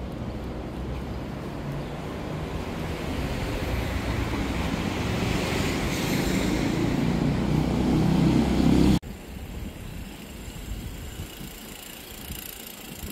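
Road traffic noise that grows steadily louder for about nine seconds, as of a vehicle drawing near, then cuts off suddenly to quieter background sound.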